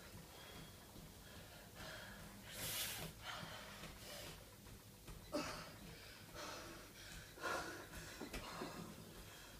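A woman breathing hard and gasping through her open mouth, with uneven loud breaths about a second apart. She is out of breath and exhausted from exercising.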